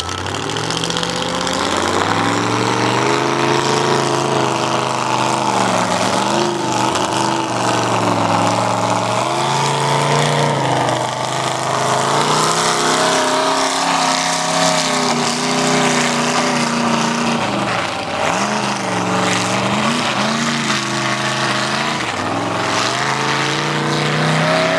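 Lifted 4x4 mega truck's engine revving hard as the truck churns through a mud pit, its pitch climbing in the first couple of seconds, then dropping and rising again and again with the throttle.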